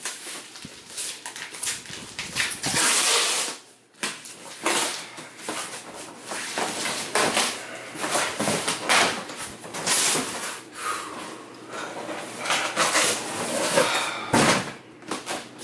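Cardboard shipping box being pulled and torn open by hand: irregular rustling, tearing and scraping of cardboard, with a dull thump near the end.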